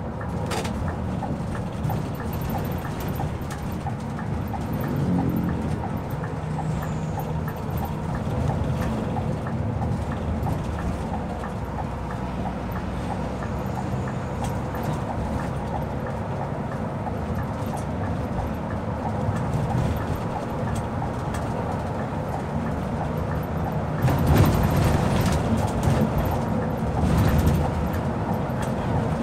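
Interior sound of a Scania K360 IB coach on the move: its rear-mounted diesel engine running steadily, with road noise and small ticks and rattles in the cabin. It grows louder about five seconds before the end.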